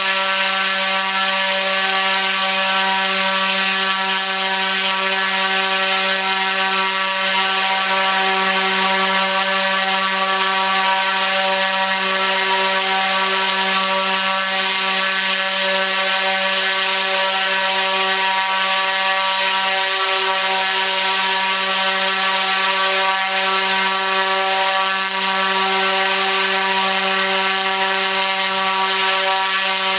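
T-Motor U13 100kV brushless motor driving a 29x9.5-inch three-blade carbon propeller at full throttle: a loud, steady hum with a rush of air, its pitch unchanging.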